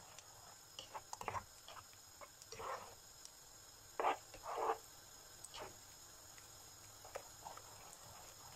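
A black nylon slotted spoon stirring a thick, simmering tomato and seafood sauce in a nonstick frying pan: irregular short scrapes and wet sloshes, the loudest pair about four seconds in.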